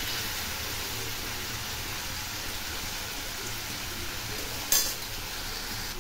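Chopped tomatoes and grated carrot sizzling steadily as they fry uncovered in a nonstick kadai, cooking off their juices until soft. One short knock is heard about three-quarters of the way through.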